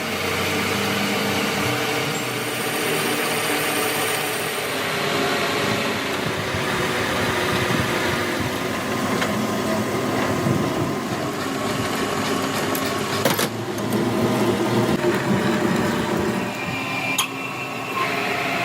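Steady workshop machine noise, with a sharp click near the middle and another toward the end.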